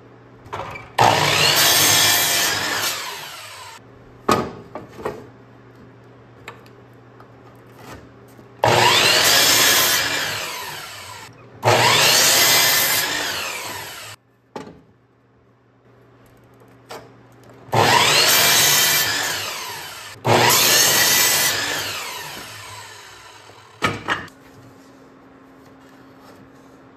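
Electric miter saw cutting through softwood lumber five times, each cut starting sharply and fading away as the blade spins down. Short knocks of the wood being handled come between the cuts.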